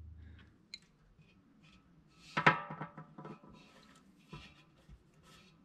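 Light metallic clicks and clinks from hands and parts at a transmission drain plug. One sharper clink about two and a half seconds in rings on briefly.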